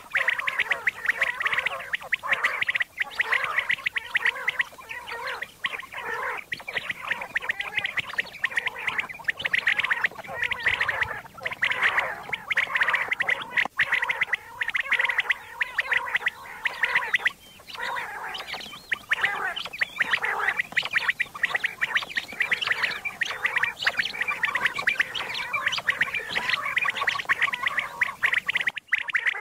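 Common quail calling in a recorded quail-hunting call track: many rapid, overlapping calls in a dense, continuous chatter, with a short break a little past halfway and again just before the end.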